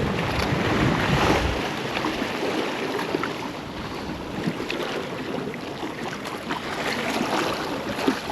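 Wind buffeting the microphone over the steady wash of surf. The low wind rumble eases off about a second and a half in, leaving the waves and a few faint small clicks.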